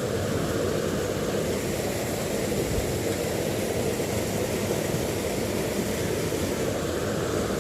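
Steady rush of river water flowing over rocks, an even noise with no breaks.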